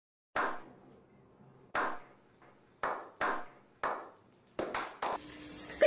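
Hands clapping in single, separate claps, about eight in all: slow and widely spaced at first, coming quicker near the end, like a slow clap starting up. A steady hum with a faint high tone comes in just before the end.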